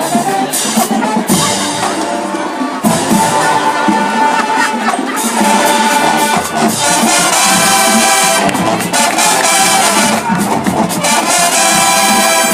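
Marching band playing, brass section over drums, getting fuller from about three seconds in.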